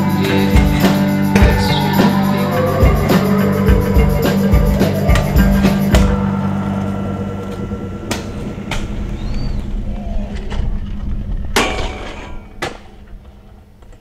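Rock music with drums that drops away about six seconds in. It is followed by five sharp clacks of a stunt scooter's deck and wheels hitting concrete.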